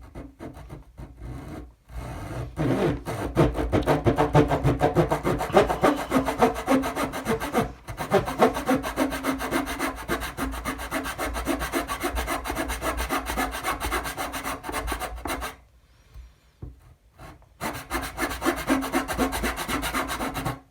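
Fine-toothed razor saw cutting through thin wooden capping strips in quick back-and-forth strokes. It pauses briefly about two-thirds of the way through, then saws again.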